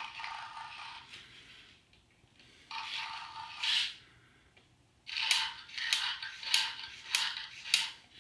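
LEGO Mindstorms EV3 robot dinosaur's motors and plastic gears running in two short whirring bursts, then about six sharp mechanical clacks, roughly two a second.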